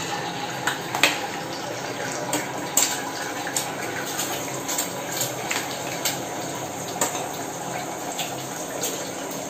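Eggs sizzling in hot oil in a kadai, a steady hiss broken by many short, sharp clicks at irregular intervals.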